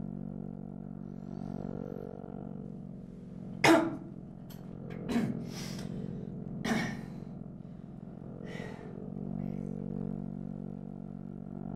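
A man coughing four times, the first cough the loudest and the last faint, over a steady low drone.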